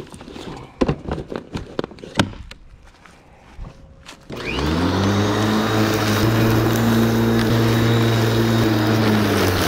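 Clicks and knocks of the plastic grass catcher being handled on a Ryobi 13-inch corded electric lawn mower. About four seconds in the mower's electric motor switches on, its pitch quickly rising as it spins up, then runs steadily with a strong hum while it cuts overgrown grass.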